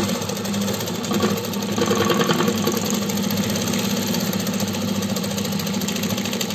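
Juki sewing machine running steadily, stitching through fabric with a fast, even needle rhythm over a motor hum. This is a test run after its hook timing was reset to cure the thread breaking, and it runs without the thread snapping.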